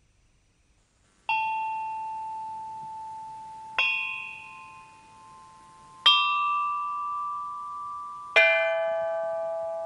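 Background music of single struck bell notes, about two and a half seconds apart, each ringing out and fading slowly. The first three climb in pitch and the fourth drops lower, after about a second of near silence.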